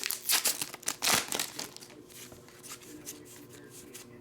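Foil Pokémon booster-pack wrapper crinkling and tearing as it is handled and opened. The crackles are densest in the first second and a half, then fade to light rustling.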